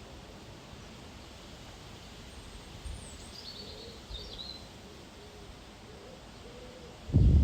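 Outdoor ambience: a steady hiss with a few short high bird chirps in the middle, then a loud, low hooting or cooing call starting just before the end.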